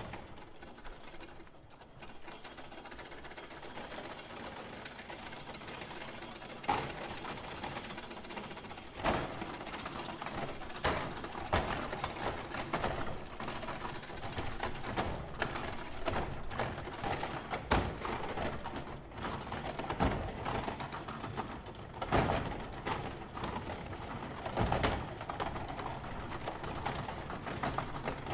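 Foosball table being played: rods sliding and spinning, with the figures and handles clattering in a fast, continuous patter and sharper knocks every couple of seconds. It starts faint and builds over the first few seconds.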